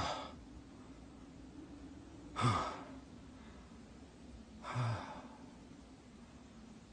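A man's heavy, breathy exhalations, short and low-pitched, twice about two seconds apart, like panting from exertion.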